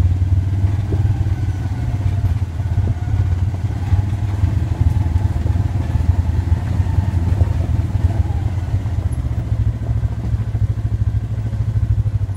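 Off-road side-by-side vehicle's engine running steadily at low trail speed, heard from inside the cab as a continuous low drone.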